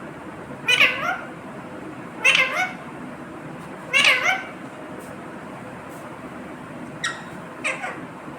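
Pet parrot calling: three loud, short, shrill calls about a second and a half apart, then a couple of fainter ones near the end.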